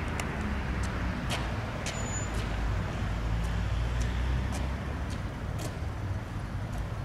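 Tram running on its rails: a steady low rumble with a sharp click about once a second.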